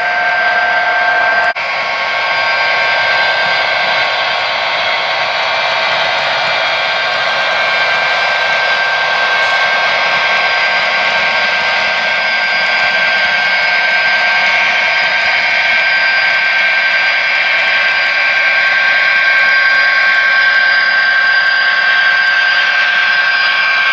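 HO scale model trains running past: a steady whirring hum from the locomotive motors and wheels rolling on the track, with a brief dip about a second and a half in.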